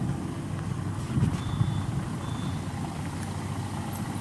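MAN NG313 articulated bus's D2866 turbocharged horizontal inline-six diesel idling at a standstill, a steady low rumble. Two short, faint high beeps sound around the middle.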